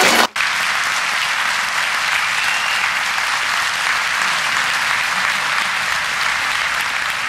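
Theatre audience applauding steadily, starting just after a brief break in the sound at the very beginning.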